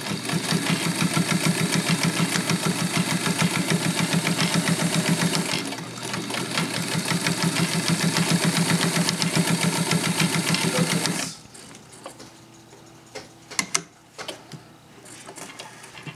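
Kenmore zigzag sewing machine running and stitching fabric with a rapid, even rhythm. It eases off briefly about six seconds in, then stops at about eleven seconds, followed by a few light clicks and rustles.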